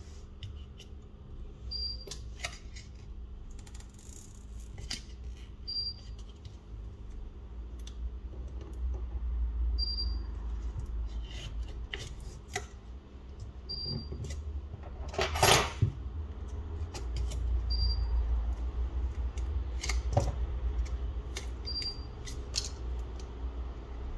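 Small clicks, ticks and taps of repair tools and phone parts being handled on a work surface during a smartphone disassembly, with one louder scrape about two-thirds of the way through. A faint short high chirp repeats about every four seconds.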